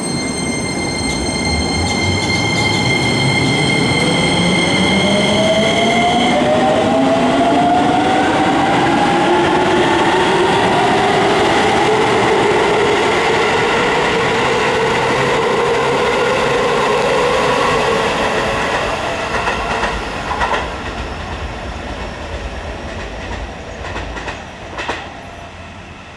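Keisei 3000-series electric train accelerating away from a station. The whine of its inverter and traction motors rises steadily in pitch over about fifteen seconds above the wheel and running noise, then fades. Near the end come a few clacks of wheels over rail joints.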